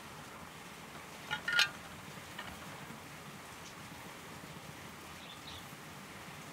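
A metal spoon clinking against a metal spice tray: a quick cluster of small ringing clinks about a second and a half in, and a lighter tap about a second later, over a faint steady background hiss.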